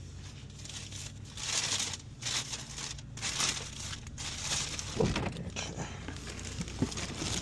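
Paper takeout bag rustling and crinkling in irregular bursts as a food delivery is handled, with a brief louder low sound about five seconds in.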